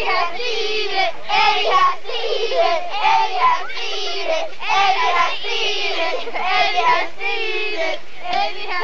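A group of children singing together, many high voices at once, without a break.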